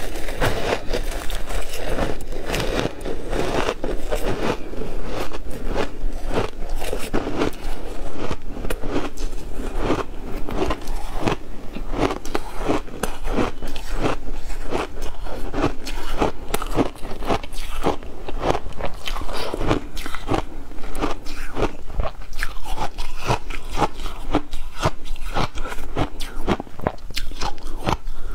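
Ice chunks coated in matcha powder being bitten and chewed, a continuous run of sharp, crisp crunches and cracks.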